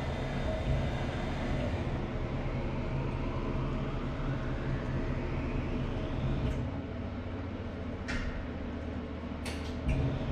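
Tormach CNC mill running with a steady motor and spindle hum, and a slowly rising whine over several seconds as the spindle head travels up out of the wood block. A few short, sharp clicks come about eight seconds in and again just before ten.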